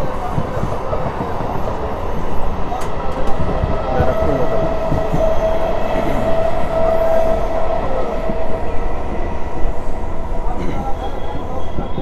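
Indian Railways EMU local train running at speed, heard from on board: a continuous rumble and rattle of the wheels on the track. A steady high tone is held for about four seconds in the middle.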